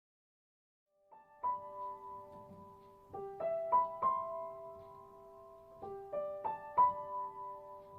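Piano music starting about a second in: slow struck notes and chords that ring on, in repeating phrases.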